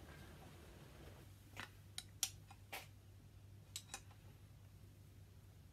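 Faint, scattered clicks and light taps of a brown glass beer bottle being handled and gripped at its cap, getting ready to open it, over a low steady hum that comes in about a second in.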